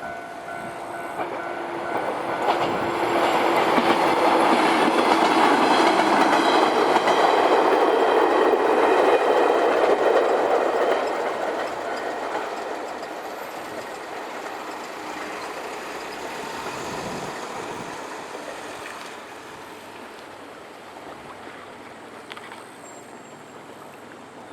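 JR Wakayama Line electric train passing over a level crossing: the wheels' rumble and clatter build up, are loudest for several seconds, then fade slowly as the train moves away. The crossing's warning bell is ringing at the start.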